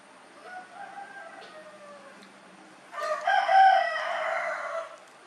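A rooster crowing: one loud drawn-out crow starting suddenly about three seconds in and lasting about two seconds, after a fainter call about half a second in.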